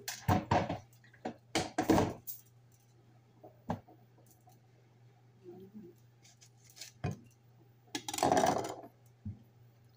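Knocks and clatter of a glass baking dish and utensils on a kitchen counter as raw chicken is handled and seasoned: a quick run of sharp knocks in the first two seconds, single knocks near four and seven seconds, and a longer clatter near the end. A steady low hum runs underneath.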